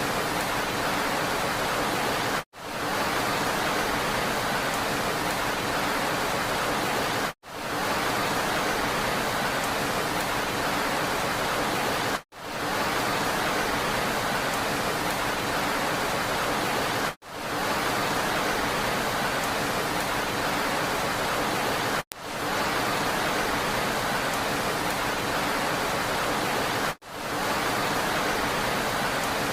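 Steady rain, a dense even hiss. About every five seconds it cuts out for an instant and fades back in, six times in all.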